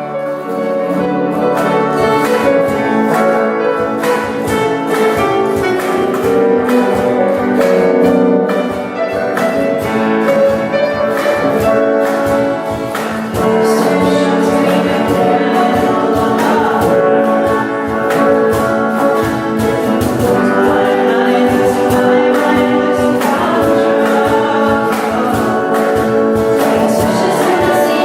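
Live concert music: an ensemble playing with a steady beat, with a choir singing.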